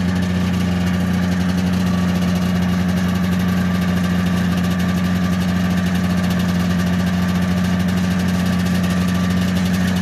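1976 John Deere Liquidator 340 snowmobile's two-stroke engine idling steadily, without change in pitch.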